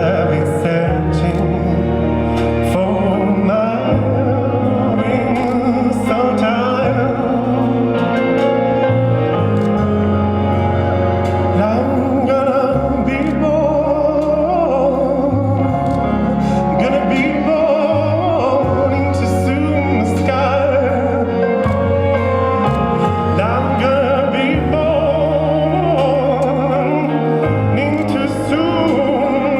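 Recorded music with a singing voice in an operatic style, holding long wavering notes over sustained low chords that change every few seconds.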